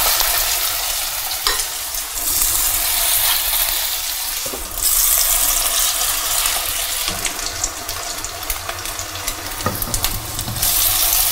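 Hard-boiled-egg burger patties sizzling as they fry in hot oil in a nonstick pan. The sizzle swells louder a few times as more patties are laid into the oil.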